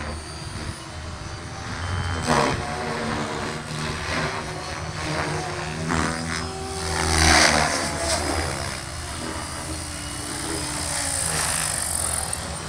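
SAB Goblin 570 electric RC helicopter in 3D flight: the hum of the spinning rotor, with two loud swelling whooshes as it passes about two and seven seconds in, and a higher whine near the end as it comes down low over the grass.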